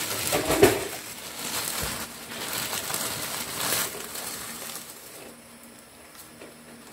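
Dry crinkling and crackling as a bundle of misua noodles is handled and dropped into the broth, with a loud sharp crackle about half a second in, growing quieter over the last couple of seconds.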